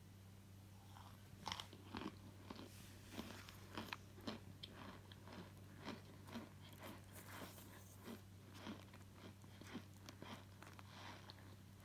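Chunks of powdery starch crunching and cracking, a quick irregular run of sharp, crisp crunches starting about a second and a half in.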